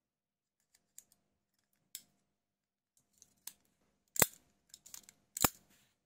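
Small spring-loaded knife mechanism being worked by hand: a few light clicks, then two loud, sharp snaps a little over a second apart near the end, with smaller clicks between them.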